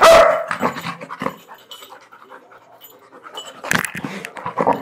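Two Labrador retrievers panting and scuffling in rough play, with a loud burst right at the start and more scuffling noises near the end.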